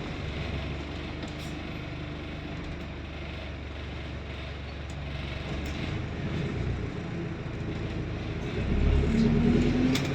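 Diesel engine of an ADL Enviro400 double-decker bus that has been converted to diesel, running at a low, steady idle, then rising in pitch as it pulls away near the end.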